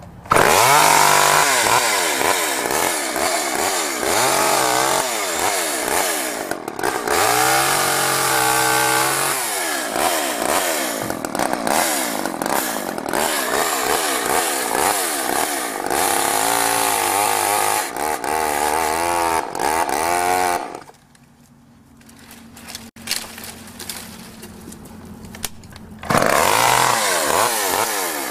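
Small Craftsman two-stroke chainsaw running and being revved repeatedly, its pitch rising and falling with each blip of the throttle. About three quarters of the way through it drops to a much quieter idle for several seconds, then revs up again.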